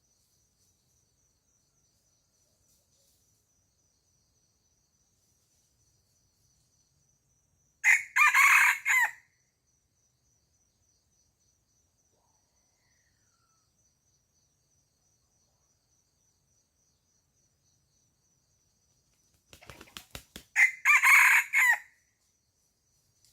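A rooster crowing twice, each crow short and loud, about twelve seconds apart. Just before the second crow comes a quick run of sharp claps, such as wings flapping.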